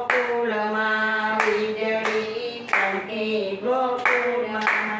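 Women singing a Gujarati devotional bhajan without instruments, with steady hand-clapping keeping the beat, about three claps every two seconds.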